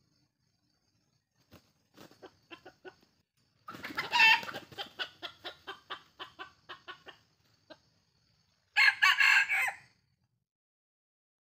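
Junglefowl rooster giving a loud squawk, then a run of rapid clucks, about four a second, that fade out; near the end a rooster crows once, about a second long.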